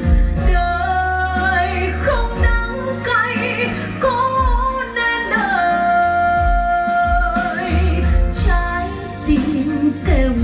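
A song with a woman singing long held notes over a deep, pulsing bass line, played through B&W 803 D3 floor-standing loudspeakers driven by an Accuphase E-408 integrated amplifier.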